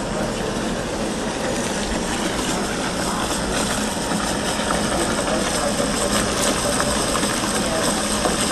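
Water running through a chemical dilution dispenser's hose into a plastic mop bucket, mixing floor stripper solution that foams up as it fills. A steady rushing with no break.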